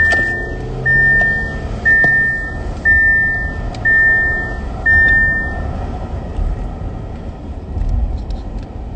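A car's warning chime sounding six times, one steady tone about a second apart, then stopping, over the low rumble of the car's engine and road noise.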